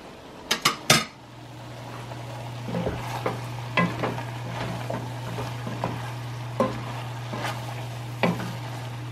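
Three sharp knocks about half a second to a second in, then a wooden spatula stirring and scraping Brussels sprouts, mushrooms and vegetables sautéing in a stainless steel pan, with a light sizzle. A steady low hum sets in about a second in.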